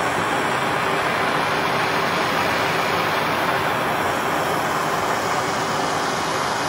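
Hand-held gas torch burning with a steady hiss as its flame heats a length of copper wire to a red glow, annealing the wire to soften it.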